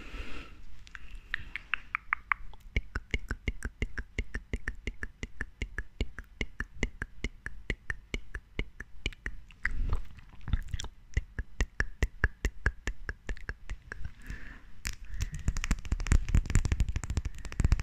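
Jade facial roller worked right against the microphone: a fast, continuous run of small clicks, several a second, louder and denser near the end.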